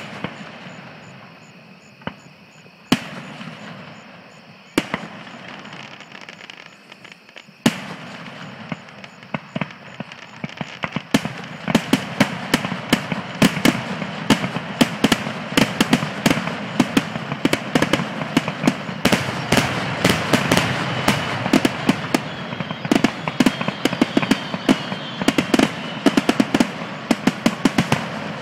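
Fireworks finale: a few single bangs a few seconds apart, then from about halfway in a dense barrage of rapid-fire bangs that keeps on without a break.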